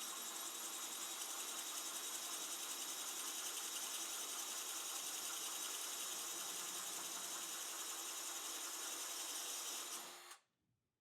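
Variable-speed drill running steadily with a quarter-inch spear-point porcelain tile bit, boring a hole through porcelain wall tile; it stops suddenly near the end.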